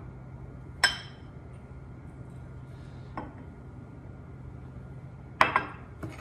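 Small glass prep bowls clinking against each other and the countertop. There is a sharp clink about a second in, a faint one near the middle, and three quick clinks near the end, over a low steady hum.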